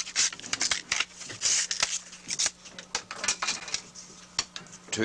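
Bamboo cane being split with a knife along the grain into rod strands: an irregular run of sharp cracks and clicks with short tearing rasps as the fibres part.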